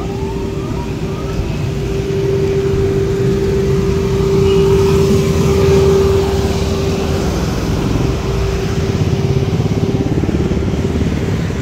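Electric inflatable blower running, a steady hum with a constant tone over a low rumble, growing louder about halfway through and easing off again.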